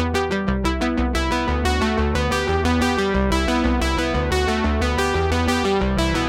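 Background music: fast synthesizer and electric-piano keyboard notes over a steady bass line.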